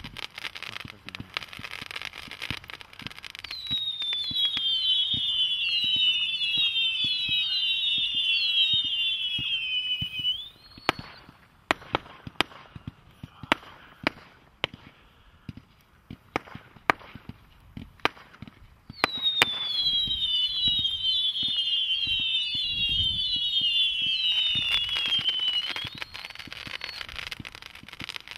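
'Master of the Universe' firework going off in two long volleys of many overlapping whistles, each falling in pitch. Between the volleys comes a spell of scattered sharp bangs. A last bang follows the second run of whistles.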